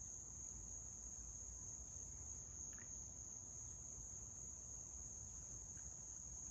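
Night insect chorus: one steady, high-pitched, unbroken drone, with a brief faint chirp about three seconds in.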